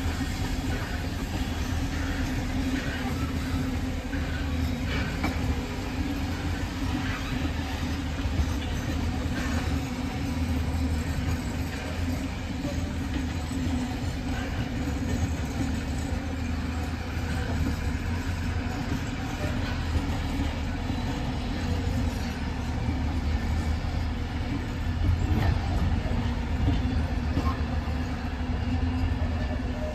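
A train running on the rails: a steady rumble of wheels and track with a few light clicks.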